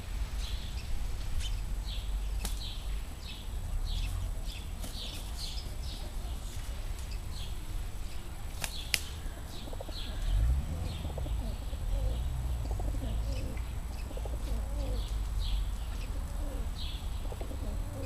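Feral pigeons squabbling, one giving low cooing calls about ten seconds in, with short high chirps of small birds repeating throughout and a steady low rumble underneath. A single sharp click comes near the middle.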